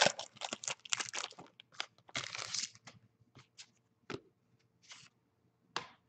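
Foil wrapper of a 2014 Certified football card pack crinkling as it is torn open and the cards pulled out, dense for the first second or so, then scattered short rustles and light taps as the cards are handled.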